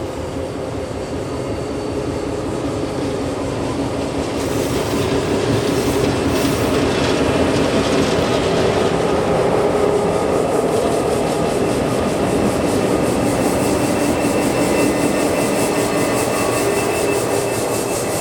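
Diesel-hauled grain train passing: the locomotives' engines run with a steady hum over wheels rolling on the rails. It grows louder over the first several seconds, and later there is a faint high wheel squeal and clatter from the rails.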